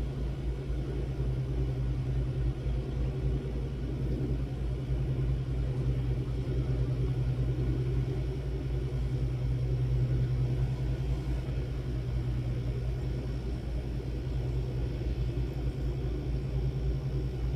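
Steady low rumble with a hum, as of a small jeweler's soldering torch flame held on a silver jump ring while the solder melts and flows into the joint.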